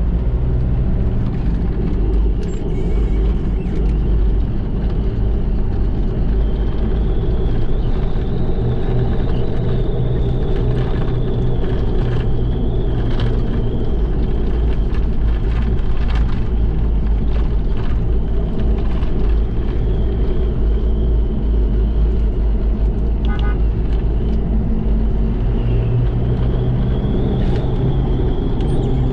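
Mitsubishi Pajero's 4D56 four-cylinder turbo-diesel engine running steadily while the vehicle is driven, its low note shifting a little in pitch, with a thin high whine above it.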